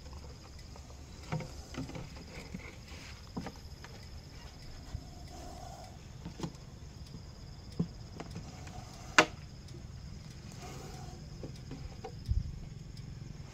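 Steady high chirring of crickets, with scattered knocks, rustles and footsteps on grass as a clear plastic jar is tipped over and moved about; the sharpest knock comes about nine seconds in.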